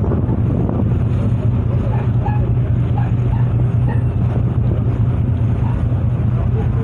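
A ship's engine running with a steady low hum, mixed with the rush of wind on the microphone.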